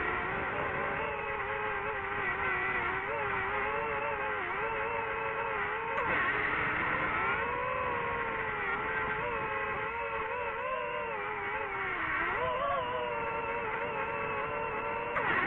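DJI FPV drone's motors and propellers whining steadily, the pitch wavering up and down and dipping sharply about twelve seconds in. A brief click about six seconds in.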